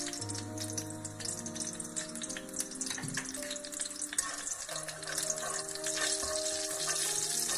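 Minced garlic frying in hot olive oil in an aluminium wok: a steady, fine crackling sizzle.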